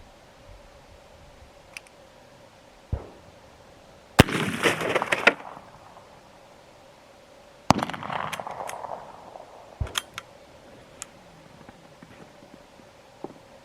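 Two sharp rifle shots from a 17 HMR bolt-action rimfire rifle, about three and a half seconds apart, fired at a 1 gallon water jug. The first is followed by about a second of splashing as the jug bursts. A few light clicks fall between and after the shots.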